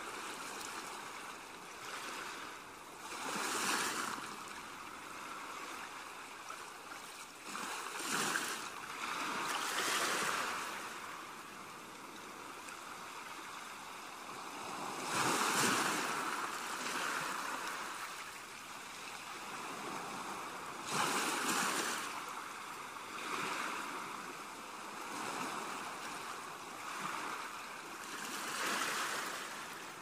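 Small, calm sea waves breaking on a sandy beach and washing back, with a louder wash swelling and fading every few seconds.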